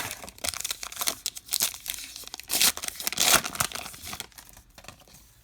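Baseball card pack wrapper being torn open and crinkled by hand: an irregular run of ripping and rustling, loudest about three seconds in, then fading near the end.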